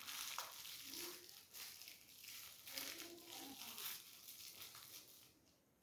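Bedding rustling as a restless sleeper shifts about, with short low murmurs about a second in and again around three seconds. It fades away near the end.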